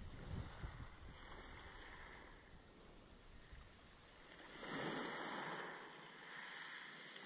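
Small waves of a calm sea lapping and washing on the shore, with one louder wash about five seconds in.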